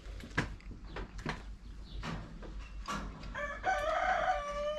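A few sharp clicks, then about three seconds in a rooster crows: one long call held at a steady pitch.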